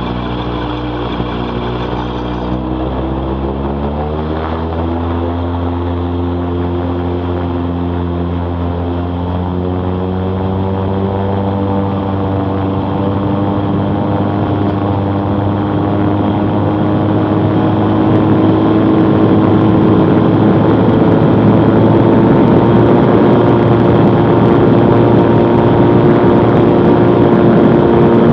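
Bensen B8M gyrocopter's engine and pusher propeller being throttled up: the pitch jumps up about four seconds in, then keeps rising slowly while the sound grows louder as the gyro rolls faster across the grass.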